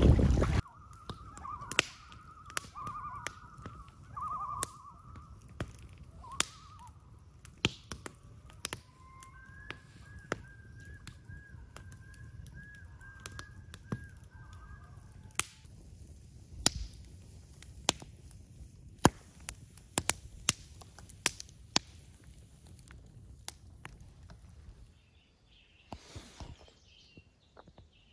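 Wood campfire crackling with sharp, irregular pops, while a bird calls in long, wavering notes during the first half.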